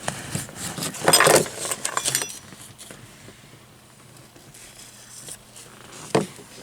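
Small metal parts clinking and rattling, in a cluster about a second in, then a single sharp click near the end.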